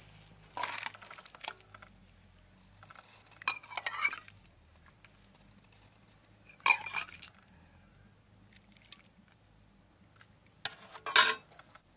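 A metal ladle clinks and scrapes against a metal cooking pan and steel bowls while thick curry is served, in four short bursts a few seconds apart. The loudest burst comes near the end.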